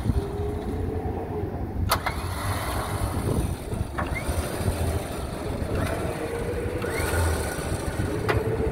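Badland Apex 12,000 lb electric winch reeling in its synthetic rope in short runs, its motor whining each time it pulls. A few sharp clicks come in between.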